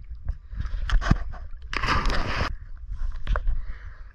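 Lake water sloshing and gurgling around a camera held at the water's surface, with a low rumble throughout and irregular rushes of water noise, the biggest about two seconds in.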